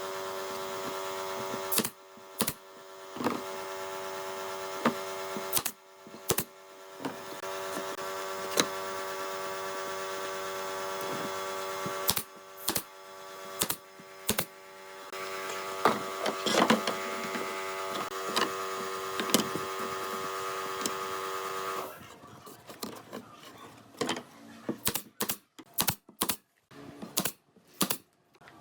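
A small electric motor whining steadily at a fixed pitch, dropping out briefly twice, with sharp knocks of wood on wood now and then. Near the end the motor stops, and a quick run of irregular sharp taps and clicks follows.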